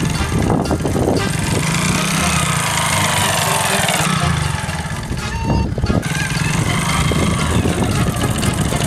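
Small motorcycle engine running as the bike rides along, with background music over it.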